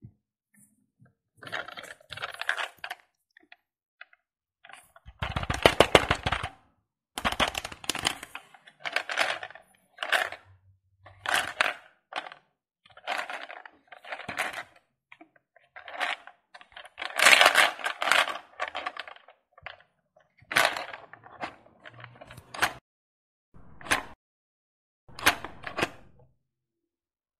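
Small plastic toy ball claw machine worked by hand: a dozen or more bursts of rapid plastic clicking from its buttons and claw mechanism, each lasting about a second, with short pauses between.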